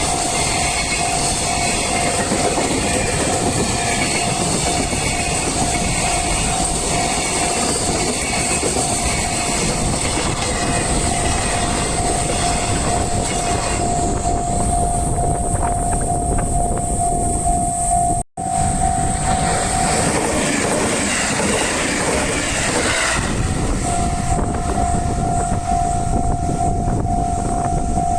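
A train passing over a Japanese level crossing, its wheels rumbling, while the crossing's electronic warning bell rings in quick, even pulses. About eighteen seconds in, the sound cuts out for an instant; the bell then stops for a few seconds and starts ringing again near the end.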